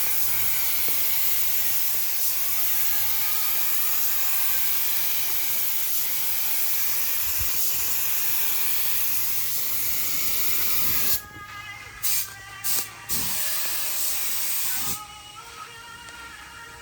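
Compressed air hissing from an air tool: a steady hiss for about eleven seconds, then stopping and coming back in short blasts.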